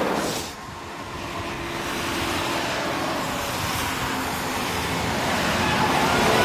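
Steady rumble and rush of a moving vehicle. It dips briefly about half a second in, then slowly grows louder.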